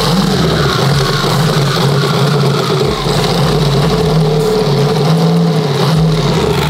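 Jeep's engine running loud at raised, fairly steady revs while held on the brakes.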